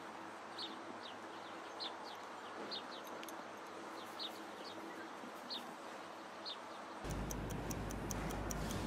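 Sparse, short high chirps of a bird, each falling slightly, every half second to a second over faint hiss. About seven seconds in they give way to a wall clock ticking, several quick ticks a second, over louder room hiss.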